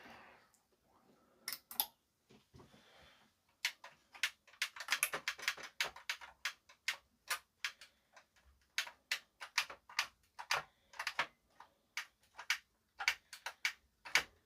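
Front-panel push buttons on a JVC RX-320V receiver clicking as they are pressed one after another, a quick flurry and then about two presses a second. The buttons are being tested after their contacts were cleaned; some respond only slowly and some not at all.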